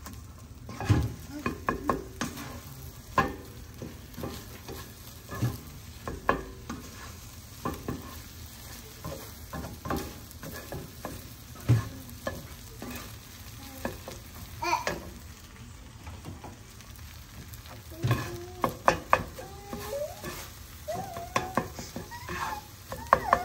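Scrambled eggs with cheese sizzling in a frying pan while a spatula stirs and scrapes them, with repeated short clicks and scrapes against the pan. The scraping gets busier near the end.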